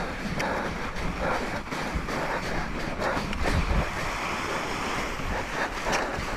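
Running footsteps crunching through soft, churned snow, coming at an uneven pace, with wind rushing over the microphone.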